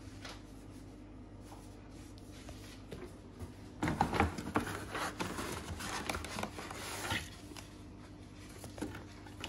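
Plastic parts and cardboard packaging of a boxed paint sprayer being handled, rustling with clusters of clicks and knocks. The handling starts about four seconds in and lasts about three seconds, over a faint steady hum.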